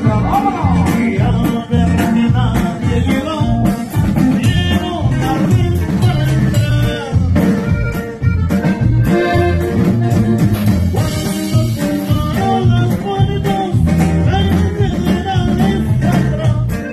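Live norteño band music with saxophone over drums, bass and guitar, with a steady beat.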